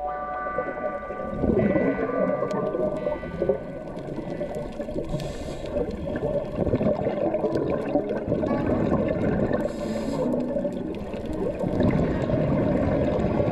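Muffled underwater sound picked up by a diving camera, with a short hissing rush of a scuba diver's exhaled regulator bubbles about every four to five seconds.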